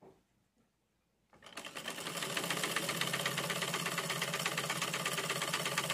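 Old black cast-iron sewing machine starting up about a second in, quickly picking up speed, then running steadily with rapid, even needle strokes as it stitches a curtain hem.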